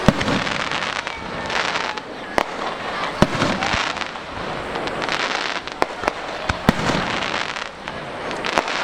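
Fireworks display: about a dozen sharp bangs at irregular intervals over a continuous crackle of bursting shells.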